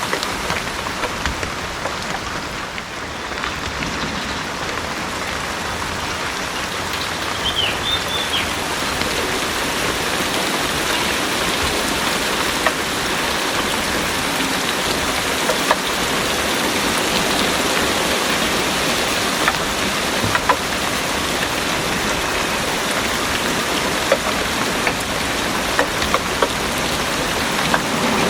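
Heavy rain pouring steadily on a garden, with scattered louder drops ticking close by.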